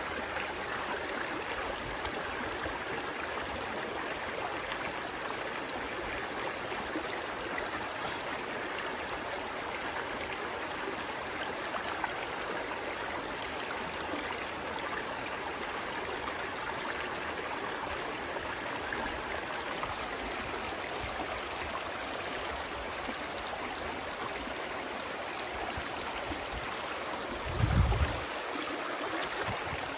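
Stream water flowing and splashing with a steady rush. About two seconds before the end comes a brief low thump.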